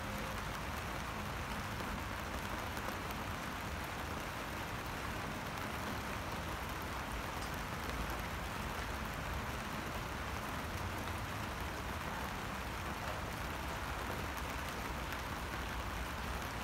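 Steady rain falling onto standing water: an even hiss of drops hitting the surface, with faint small ticks from individual drops.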